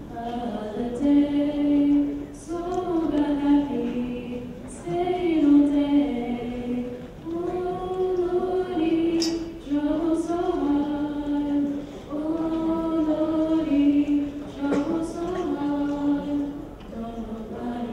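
A choir of higher voices singing unaccompanied, in slow phrases of long held notes.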